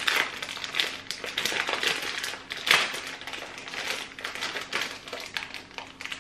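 Plastic packet of loose tea crinkling and crackling as it is pulled and twisted in the hands, a hard-to-open bag being forced open. A rapid, uneven run of crackles, with one louder crackle a bit under three seconds in.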